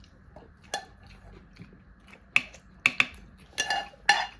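Eating utensils clinking against bowls and dishes at the table: about six sharp clinks, several of them ringing briefly.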